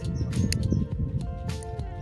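Background music of held notes with light percussive clicks. A low rushing noise is loudest in the first second.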